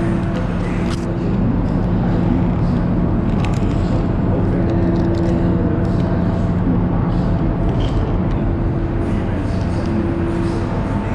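Loud, steady machinery drone with a low hum, over which faint clicks and rattles come and go.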